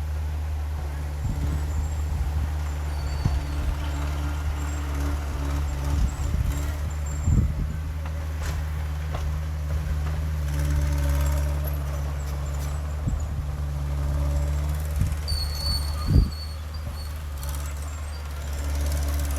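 Heavy earthmoving machinery's diesel engine running steadily, with a few sharp clanks, the loudest about sixteen seconds in.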